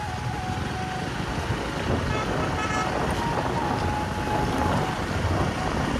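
A two-wheeler running along a road, its engine noise mixed with steady wind buffeting on the microphone.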